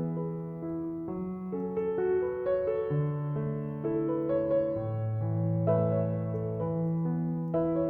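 Soft, slow piano music: sustained notes over a gentle bass line, changing every half second or so.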